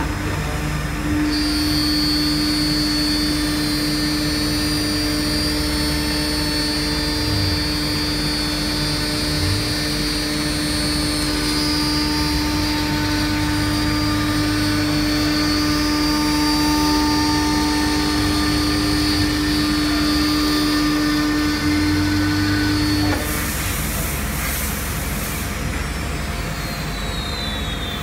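Chencan CC-M1325A CNC router's spindle whining at a steady pitch as its bit cuts into a wooden board, with continuous cutting noise. The whine drops out about five seconds before the end, leaving the steady machine noise.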